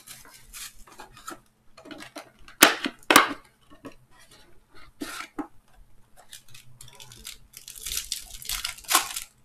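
Plastic shrink-wrap being pulled off a cardboard trading-card box and crinkled, with two sharp knocks as the box is handled and its lid opened about three seconds in. Near the end, a foil card pack is torn open with a crinkling rip.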